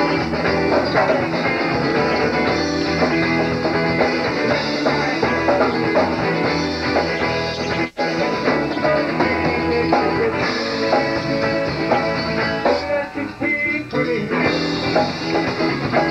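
Southern rock band playing: electric guitars, bass and drums. About eight seconds in the whole band cuts out for a split second, and the sound thins out briefly a few seconds later.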